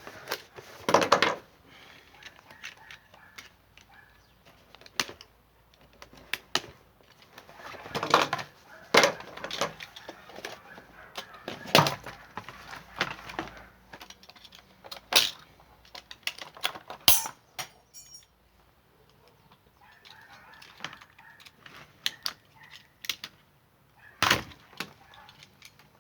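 Irregular clicks, knocks and clatter of hand tools and clamps being picked up and handled.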